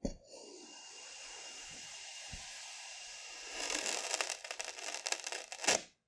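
Stainless steel cylinder cutter pressed down into crunchy kinetic sand: a steady gritty grinding at first, then louder, denser crackling and crunching as it sinks through, ending in a final loud crunch just before it stops.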